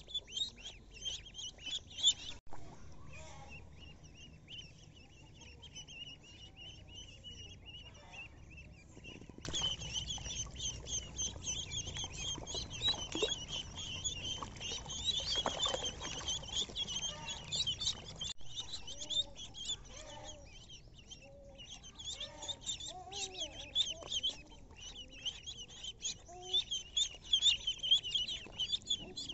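Ducklings peeping: a dense chorus of short, high chirps from many chicks at once, thinning out for several seconds after about two seconds in and then returning in full.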